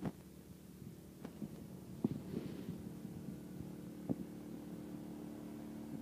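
Muffled sound through a finger-covered microphone: a steady low hum from a neighbour's pressure washer, with a few sharp knocks of the finger shifting on the mic.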